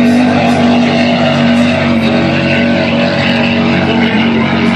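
Offshore racing powerboats running at full speed, their engines making a loud, steady drone.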